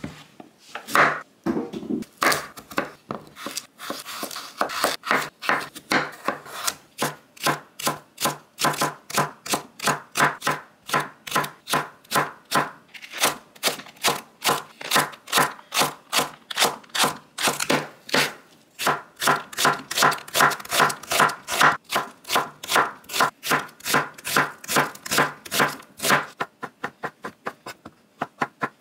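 Kitchen knife chopping on a wooden cutting board at a steady pace of about two to three strokes a second, cutting green onion and then shiitake mushrooms.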